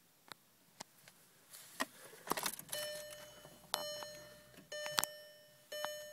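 Clicks and keys jangling in a 2003 Volkswagen GTI 1.8T, then a repeated electronic chime sounding four times, each tone starting with a click. These are the sounds of the car being readied just before its engine is started.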